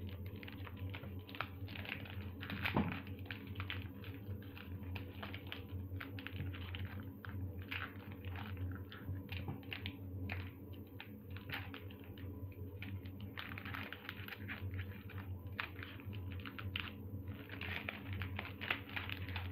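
Foil wrapper of a Pokémon card booster pack being torn open and crinkled, with the cards inside handled: a run of quick, irregular crackles and clicks over a low steady hum.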